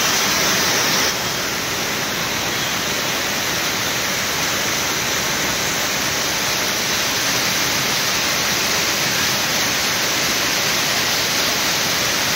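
Waterfall close by: a steady, even rush of falling water, dipping slightly in level about a second in.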